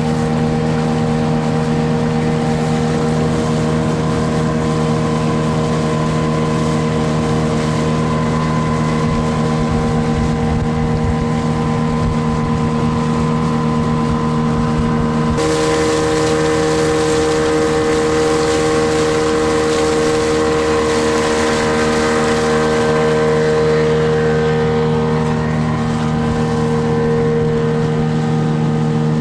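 Outboard motor pushing an inflatable boat, running at a steady pitch with a constant drone; its tone shifts abruptly about halfway through.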